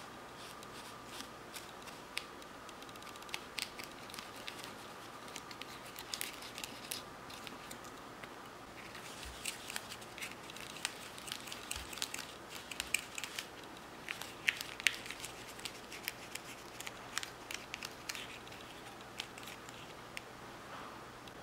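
Small plastic spoon stirring and scraping inside a plastic kit tray as powder is mixed with water into a paste, making irregular light clicks and scratches that grow busier about halfway through.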